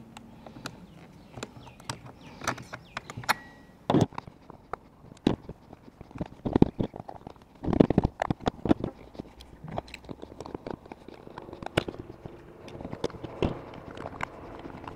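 Irregular clicks, taps and knocks of a nut driver, screwdriver and loose screws against a chainsaw's plastic housing as it is unscrewed and taken apart, with a few louder knocks about four and eight seconds in.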